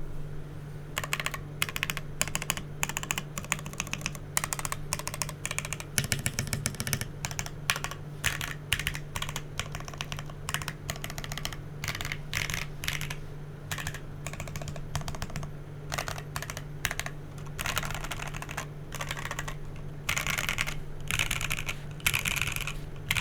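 Custom Rekt1800 mechanical keyboard being typed on in bursts of rapid keystrokes with short pauses. It has lubed Gateron Ink Black linear switches on an FR4 plate, with PBT keycaps. A faint steady low hum runs underneath.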